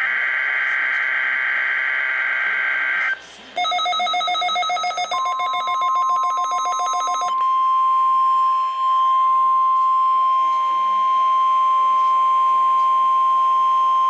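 NOAA Weather Radio SAME alert data burst, a rapid warbling two-tone screech, ends about three seconds in. A receiver's alert then beeps in fast pulses. From about five seconds the steady 1050 Hz weather radio alert tone holds for about nine seconds and cuts off at the end, marking a Required Weekly Test.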